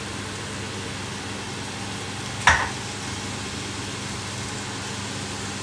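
Cauliflower and broccoli florets sizzling in a hot pan of sauce with a steady hiss. A single sharp knock comes about two and a half seconds in.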